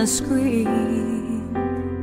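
Background music: a slow melody that glides in pitch for a moment, then settles into held notes that change about once a second over a steady low bass.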